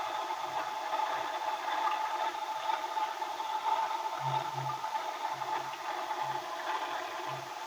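Washing machine on its spin cycle, heard from inside the spinning drum through a keypad phone's microphone: a steady whine and rattle with irregular low thuds.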